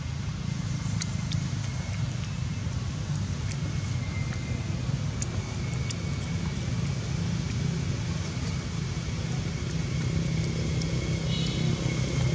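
A vehicle engine running steadily with a low rumble, growing slightly louder near the end. Faint thin high tones and scattered small ticks sit above it, with a brief high call about eleven seconds in.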